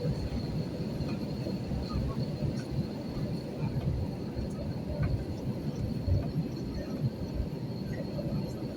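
Airliner cabin noise: a steady low rumble from the aircraft, with a faint high whine running through it.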